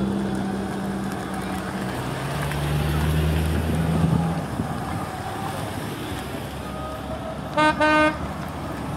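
Classic cars, among them Mercedes-Benz SL roadsters, driving slowly past one after another, engines running at low revs. Near the end a car horn gives two short toots in quick succession.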